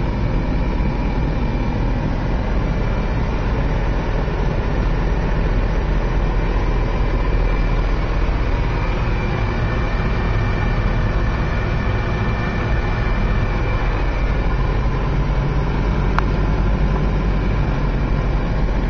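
Car engine and tyre noise heard from inside the cabin while driving, a steady low rumble. A single faint click sounds about sixteen seconds in.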